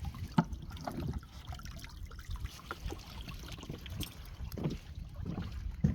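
Water lapping and splashing with irregular knocks and taps, over a steady low rumble.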